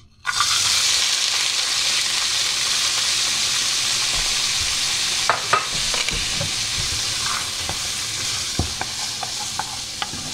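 Chopped onions and frozen bell peppers hitting hot olive oil in a deep non-stick frying pan: a sudden loud sizzle that settles into steady frying and slowly eases. From about halfway, a wooden spoon stirring the vegetables adds scattered clicks and knocks against the pan.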